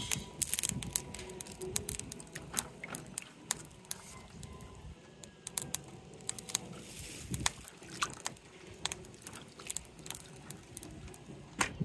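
Crab shells clicking and knocking against each other and the bowl as hands wash the crabs in water, with light splashing. The clicks are sharp and irregular.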